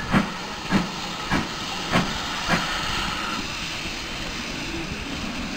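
Steam locomotive working, its exhaust chuffing in a steady beat about every 0.6 seconds, five beats in all; the beats stop about two and a half seconds in, leaving a steady hiss of steam.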